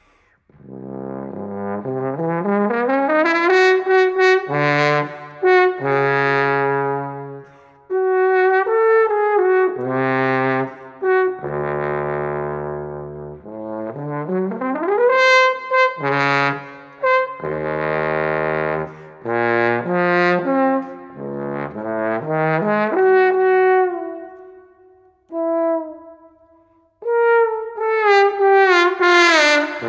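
Solo trombone playing a contemporary piece, with long slide glissandos up and down between held notes, some very low notes, and short pauses. A long upward slide opens it and a downward slide comes near the end.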